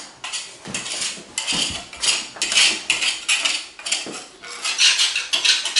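Metal hammer scraping and knocking at carpet tack strips and leftover padding along the base of a wall, a quick, irregular run of clinks and scrapes about two to three a second, as the old carpet is stripped to make way for tiles.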